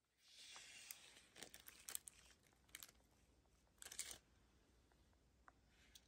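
Faint crinkling and rustling of plastic film as a diamond painting canvas with a clear plastic cover is handled and unfolded, in short bursts during the first four seconds or so.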